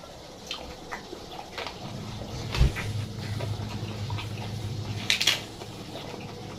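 Close-up eating sounds: chewing and wet mouth clicks, with a single thump a few seconds in.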